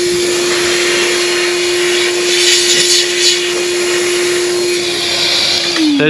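Evolution blower-vacuum running with a steady whine and rush of air, blowing condensation water off a polythene damp-proof membrane. The motor winds down with a falling pitch right at the end.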